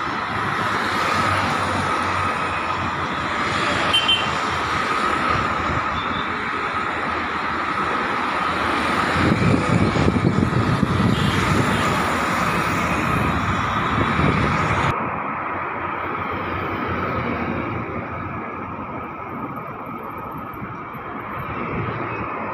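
Road traffic: motorcycles, scooters and cars driving past on a city road. The traffic is loudest about nine to fourteen seconds in, as a motorcycle passes close.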